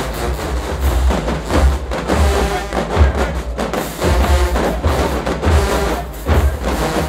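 HBCU-style marching band playing in the stands: a full brass section with sousaphones over drums and percussion, with heavy low bass hits.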